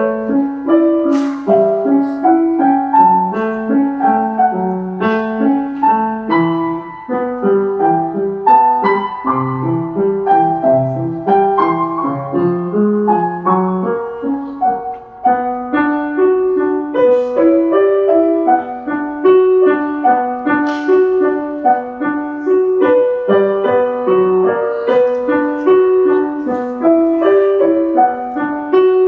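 Grand piano played solo by a child: a steady stream of even notes, a melody over a repeating lower accompaniment, with a brief break about halfway through.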